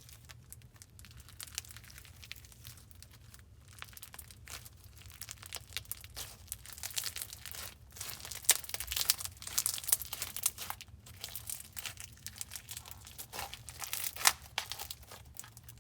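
Medium foam bead crunch slime being worked by hand: a dense run of small crackles and pops from the foam beads and air bubbles, sparse at first and busier about halfway through.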